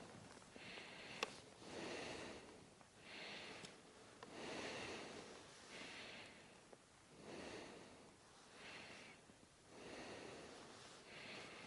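A person breathing heavily close to the microphone, faint: about five slow breaths, each a hissing intake followed by a lower exhale. A single small click about a second in.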